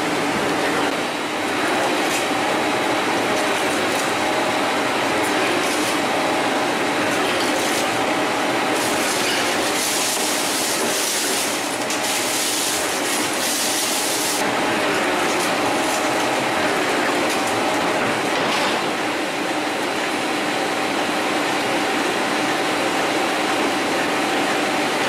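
A large gear-cutting machine cutting teeth into a big ring gear, with cutting oil pouring over the cutter. It makes a steady mechanical running noise with a few constant tones, and it turns brighter and hissier for a few seconds around the middle.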